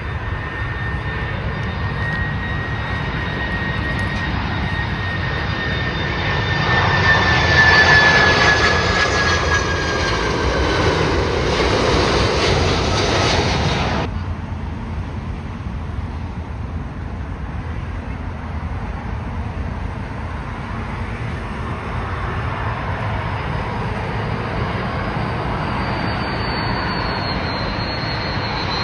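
Jet airliner passing close by, its engine whine falling slowly in pitch as it goes past, loudest about eight seconds in. The sound cuts off abruptly about halfway through, leaving a lower drone, and a fresh engine whine builds near the end as another aircraft approaches.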